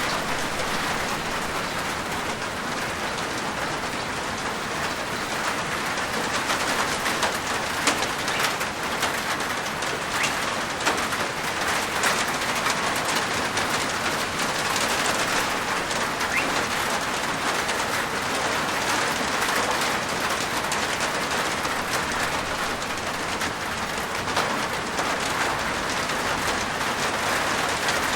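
Steady rain falling on a rooftop: a dense, even patter of drops with scattered sharper individual drop hits.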